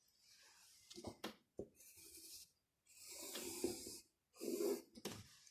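Coloring pencil scratching over paper in several short strokes as a letter is traced, with a few light clicks about a second in.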